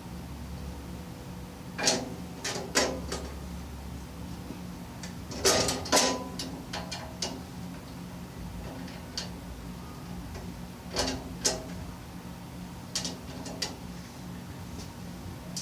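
Scattered sharp metallic clicks and knocks of steel tool-cart rails, bolts and nuts being handled and fitted by hand, the loudest a cluster about halfway through, over a steady low hum.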